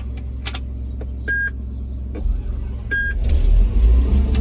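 A large farm machine's engine, just started and running, rising in level about three seconds in as it is throttled up. Two short electronic beeps sound about a second and a half apart.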